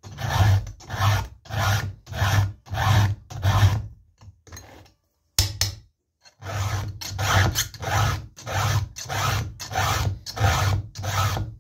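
Round chainsaw file rasping through the cutter teeth of a saw chain in even, deliberate strokes, about two a second. The filing pauses briefly near the middle, with one sharp click, then the strokes resume.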